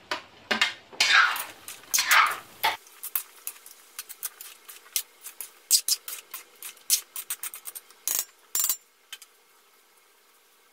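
Metal spoon stirring and scraping cubed potatoes, carrots and chicken around an aluminium wok: a run of sharp clinks and scrapes, loudest and densest in the first three seconds, stopping about nine seconds in.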